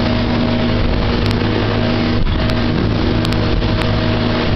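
Motorboat engine running steadily under way, its hum held at one pitch, with a dense rushing noise over it and a brief dip about two seconds in.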